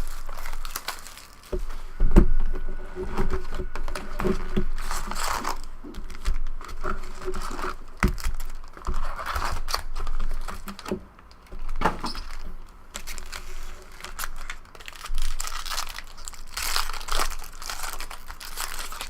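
2012 Bowman Draft jumbo packs of trading cards being torn open, their wrappers crinkling and crumpling in irregular rustles with sharp clicks as the cards are handled.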